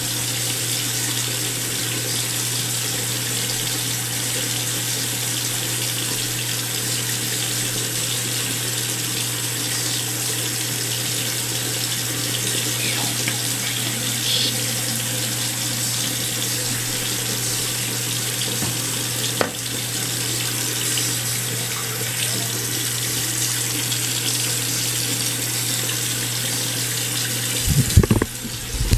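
Bathroom tap running steadily into a sink, over a steady low hum. A single sharp click about two-thirds through, and a few low bumps near the end.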